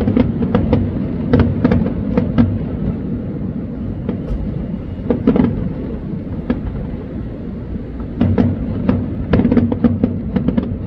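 Fireworks display: deep booms rumbling and echoing, with clusters of sharp crackling pops from the bursting shells.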